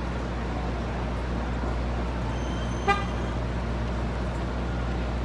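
Steady city street traffic, with one short car horn toot about three seconds in.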